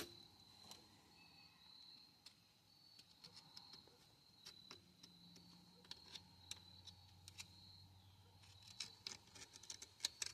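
Faint scattered metallic clicks and taps of a screwdriver picking and prying at a rusted truck front hub assembly, coming quicker near the end. A steady faint high chirring, like crickets, runs underneath.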